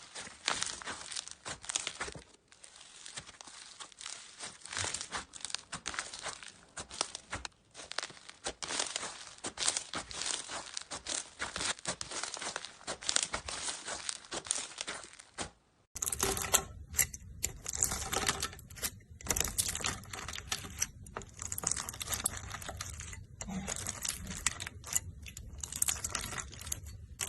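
Slime being squished and played with, giving a dense run of irregular crackling, popping and sticky tearing sounds. The sound changes abruptly about two-thirds of the way through, becoming fuller with more low rumble.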